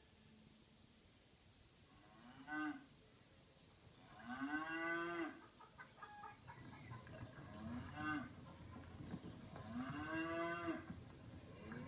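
Cattle mooing: four separate moos, short and long in turn, each rising then falling in pitch, with another starting right at the end.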